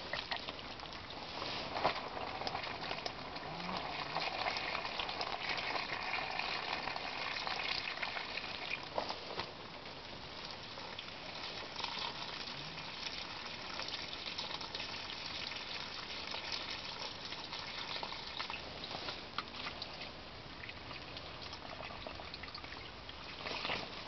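Water running from a garden hose, pouring and splashing steadily, a little louder in the first few seconds before settling to an even flow, with a few small clicks and rustles of the hose being handled.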